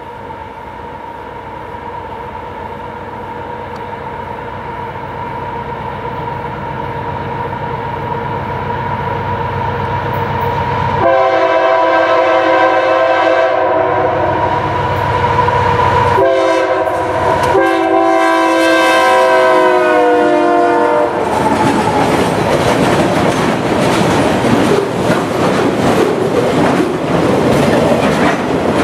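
Approaching diesel freight locomotives, their steady drone growing louder, then sound a multi-chime air horn in three blasts: a long one, a short one and another long one. After the locomotives pass, loaded flatcars roll by with a steady rumble and clickety-clack of the wheels.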